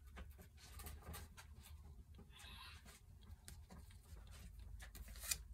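Faint handling noises: scattered light clicks and soft rustles, with one sharper click near the end.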